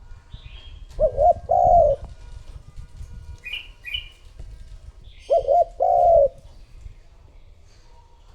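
Spotted dove cooing twice, each phrase a quick wavering double note followed by a longer held note; it is a decoy bird's call, used to draw in wild doves. Short high chirps come between the phrases.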